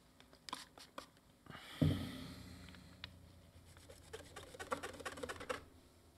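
Paper tissue rubbed over a circuit board, wiping off cleaning liquid. A few light clicks come first, then a dull knock about two seconds in that fades slowly, then quick scratchy rubbing for about two seconds that stops sharply near the end.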